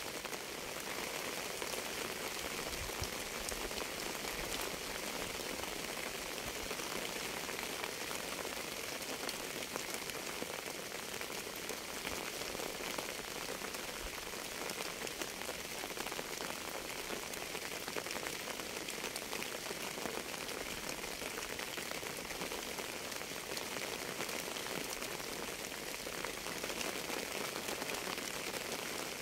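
Steady rain falling on a surface, a dense even hiss with many small separate drop hits ticking through it.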